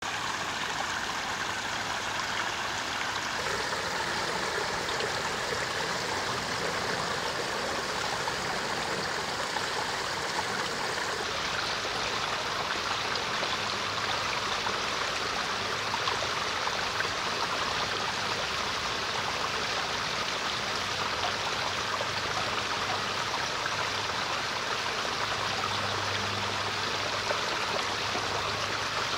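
Small garden-pond waterfall running steadily, water spilling over stacked rocks into the pond.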